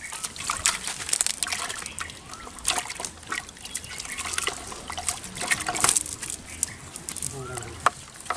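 Wet cast net being shaken out on a muddy pond bank, with irregular wet slaps and patters as the catch of fish drop and flap on the mud and water trickles and drips from the net.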